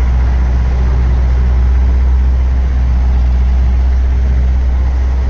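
A moving vehicle's engine and road noise, a steady, even low drone.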